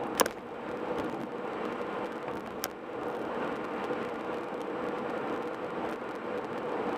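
Steady road and tyre noise of a car at highway speed, with a faint steady hum. A sharp click, the loudest sound, comes just after the start, and a smaller click follows a little before the middle.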